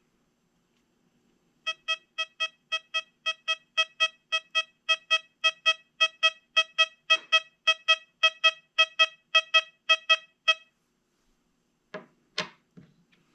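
XP Deus 2 metal detector's target tone: the same short, mid-pitched beep repeated about four times a second for roughly nine seconds as an 1842 copper large cent is passed over the coil. A few knocks come near the end.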